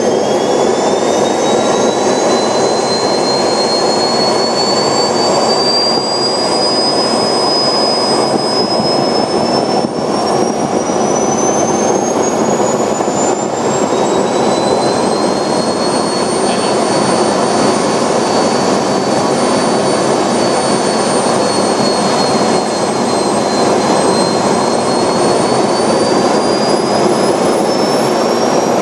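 Small model jet turbine running on a test stand: a steady loud rush with a high whine on top. The whine climbs in pitch over the first half, holds steady in the middle, then rises again over the last few seconds as the turbine speeds up.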